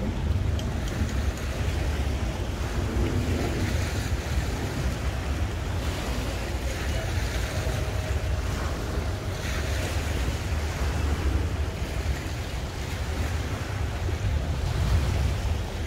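Wind rumbling steadily on the microphone, with small waves and boat wake splashing against the edge of a concrete boat ramp.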